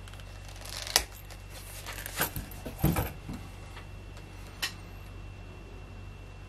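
Snap fastener on a leather knife sheath popping open with one sharp click, then leather scraping and rustling as the knife is drawn out of the sheath. A lighter click follows about a second and a half later.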